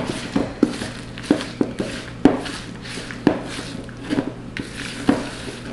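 A spatula stirring stiff chocolate chip cookie dough in a large plastic mixing bowl: irregular scraping with dull knocks against the bowl, roughly one or two a second.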